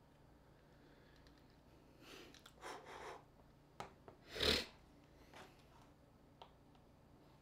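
A few breathy huffs, then one louder sharp exhale about four and a half seconds in, with faint small clicks of hand tools on a phone.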